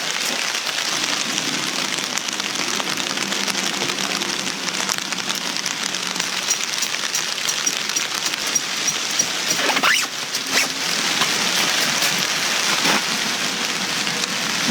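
Light rain falling steadily, a constant hiss of drops. A couple of brief knocks about ten seconds in.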